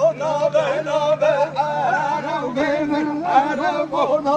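A voice singing a halay dance song, a wavering, bending melody sung without drum or instruments.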